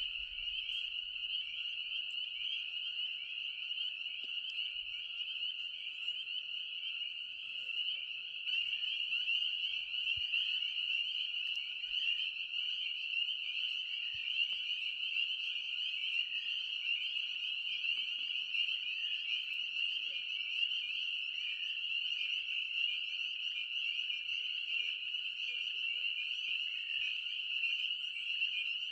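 Dense chorus of spring peepers: countless short, high peeps overlapping into one steady, shrill wall of sound.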